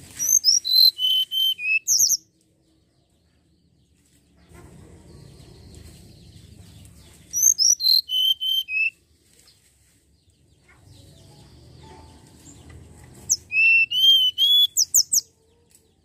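Hill blue flycatcher singing: three short phrases of clear, high whistled notes, each about two seconds long, the first two stepping down in pitch. A faint low rumble fills the pauses between phrases.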